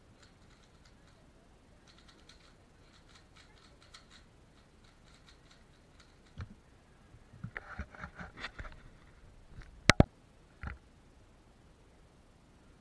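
Valk 3 Power M magnetic speedcube being turned fast, a faint rapid clicking of the layers, then a thump as the solve ends. A burst of louder clicks and knocks from handling follows, with the loudest a sharp double clack about ten seconds in and a single knock just after.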